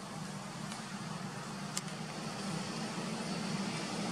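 Steady low hum of a distant motor over a background hiss, with a few faint clicks of dry leaves under monkeys' feet.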